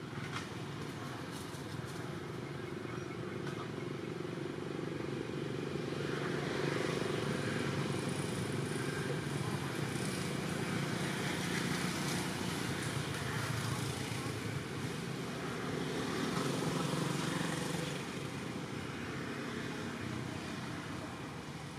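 Steady motor-traffic noise of vehicles running nearby, growing louder about six seconds in and easing off near the end.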